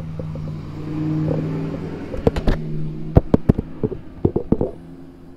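Handling noise of a camera being set down on the car: a string of sharp knocks and scrapes in the middle, the loudest sounds here, over a steady low hum that swells briefly about a second in.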